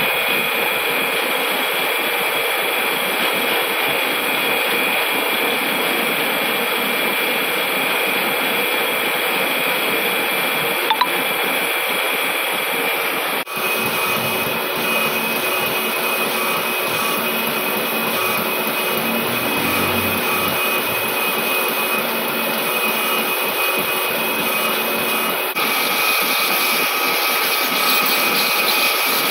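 Heavy lathe turning a large forged metal disc while the cutting tool takes a cut: a steady machining noise with a high steady whine, changing abruptly twice.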